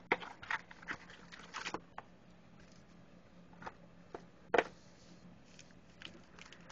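Cardboard hobby box being opened and its contents handled: scattered small clicks and rustles of cardboard and wrappers, with a sharper tap or knock about four and a half seconds in.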